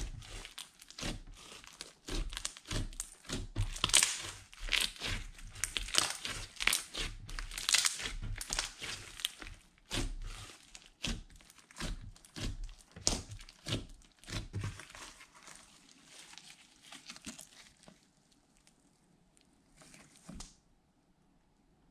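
Hands kneading and poking a large mound of glitter slime: a fast run of sticky clicks, pops and squishes as the slime is pressed and pulled apart. The clicks grow fewer and quieter in the last few seconds.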